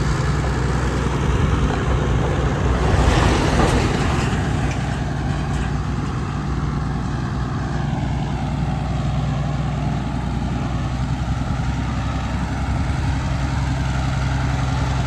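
Heavy diesel road-construction machinery running steadily with a low engine drone, with a brief louder rush of noise about three seconds in.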